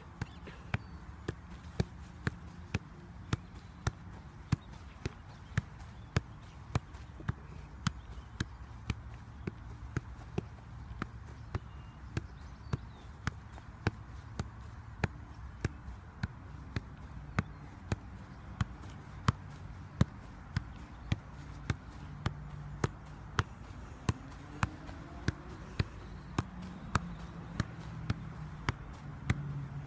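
A football being kept up off the foot: a steady run of dull thuds of foot on ball, about two a second.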